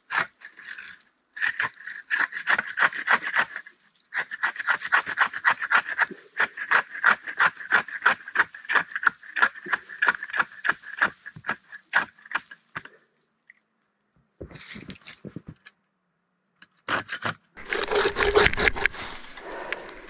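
Handsaw cutting through the trunk of a small evergreen tree in rapid back-and-forth strokes, about three a second, with short breaks. The sawing stops about thirteen seconds in. A louder rustling burst comes near the end.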